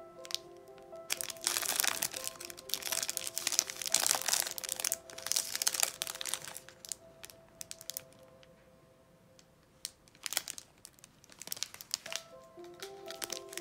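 Clear plastic snack wrapper crinkling as it is opened and a chocolate-filled crepe is pulled out, dense rustling for several seconds, then a couple of short crinkles near the end. Soft background music plays underneath.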